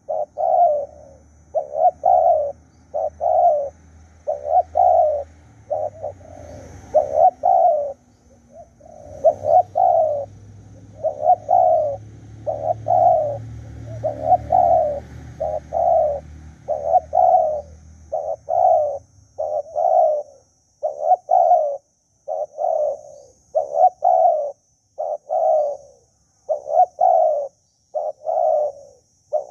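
Spotted dove cooing over and over, a steady run of short coo notes about one a second. A faint low rumble sits underneath and fades out about two-thirds of the way through.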